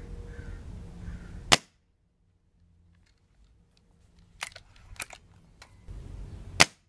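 Hatsan 135 .30 caliber break-barrel air rifle firing twice, about five seconds apart: each shot is a sharp crack, the two the loudest sounds here. A few quieter clicks come between the shots.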